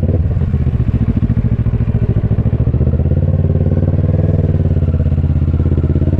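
Motorcycle engine running steadily on the move, with a fast even pulse, the note lifting a little midway and easing off again near the end.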